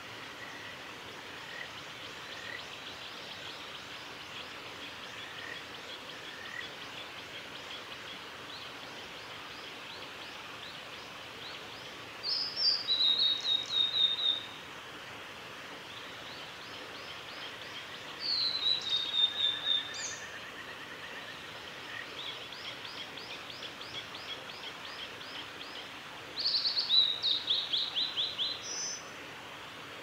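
Male blue-and-white flycatcher singing three phrases about two seconds long, a few seconds apart, each of high, clear whistles falling in pitch and ending in a quick run of short notes. Faint, scattered chirps of other birds sound in the background.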